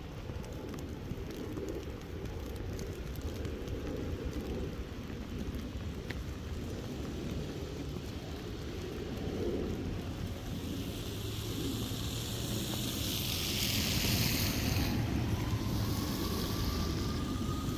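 Wind rumbling on the microphone, with a vehicle approaching in the second half: a hiss grows louder and a faint rising tone comes in near the end.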